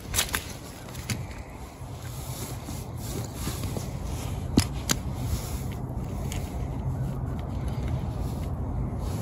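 Scraping and rustling of rubber boots and waders shifting on dry leaves and muddy ground, with a few sharp clicks near the start and a louder one about halfway in, over a steady low rumble.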